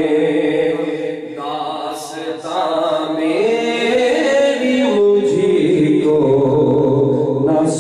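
A man singing an Urdu ghazal solo, drawing a line out in long held notes with sliding ornaments between them.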